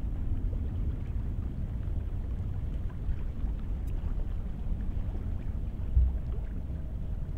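Distant low, steady rumble of an Airbus A380's four GP7200 turbofans as the airliner climbs away after takeoff, with a brief louder low thump about six seconds in.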